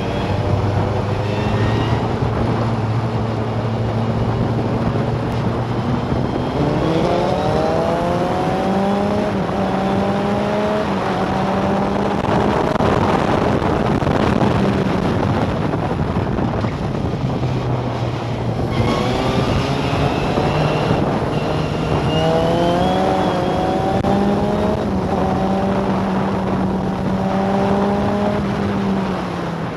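Historic formula racing car heard from the cockpit: its engine runs hard at high revs, the pitch climbing in a series of rising steps through the gears, breaking off about two-thirds of the way through, then climbing again and falling near the end. Wind rushes steadily over the cockpit.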